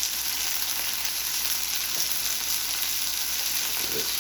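Thin chicken breasts sizzling steadily as they sear on a hot flat-top griddle.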